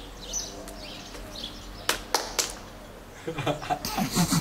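Small birds chirping in the background, three sharp smacks about two seconds in, then a burst of people laughing near the end.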